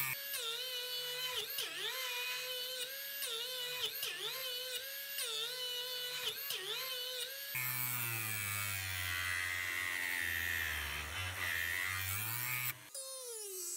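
Rotary engraving tool with a small grinding stone, running at low speed and grinding a steel planer knife. Its whine dips in pitch again and again, and it shifts abruptly to a different pitch twice.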